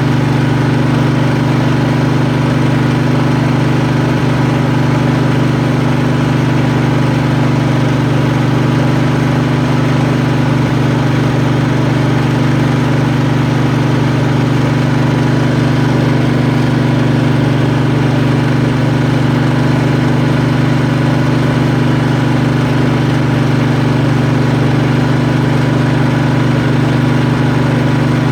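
Kohler Command engine of a Craftsman riding mower running at a steady, unchanging speed.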